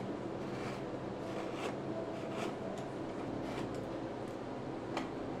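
Hand carving gouge paring small cuts in white pine: short, irregular scraping cuts, about one or two a second, the sharpest near the end, over a steady background hiss.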